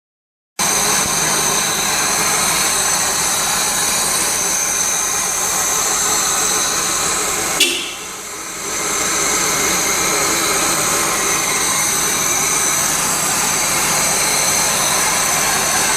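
2002 Honda Accord engine running with a misfire. About halfway through, a sharp click is followed by a brief dip in the sound before the steady running resumes.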